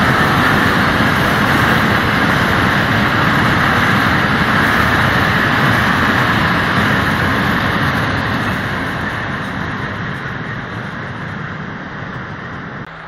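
Freight train of open goods wagons rolling past close by, a steady loud noise of steel wheels on the rails. It fades from about seven seconds in as the last wagons pass and the train moves away.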